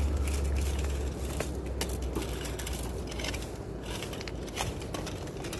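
Dry bamboo canes and leaves crackling, rustling and snapping as they are pulled and broken by gloved hands, in irregular sharp cracks.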